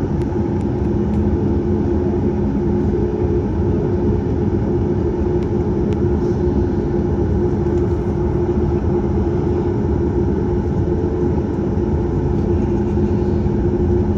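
Steady cabin noise inside a Boeing 737 MAX 8 with its CFM LEAP-1B engines running: a loud, even rush of engine and air noise with a constant low hum.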